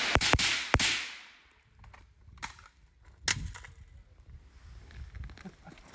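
Suppressed Zastava M92 AK (Strela suppressor) firing a fast string of shots, three in the first second, each with a short echo that dies away. Two fainter sharp knocks follow, about two and a half and three and a half seconds in.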